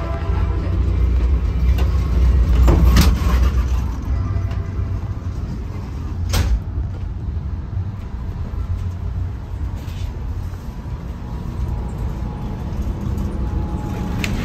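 Low, steady rumble inside a Caltrain passenger car, heavier for the first few seconds and then easing. Sharp metallic clunks land about three seconds in, about six seconds in and again near the end.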